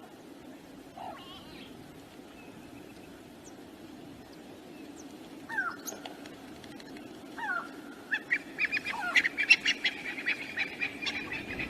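Wild birds calling: a few short descending whistled calls, then a rapid, loud chattering series of notes in the last few seconds, over a steady low rushing background.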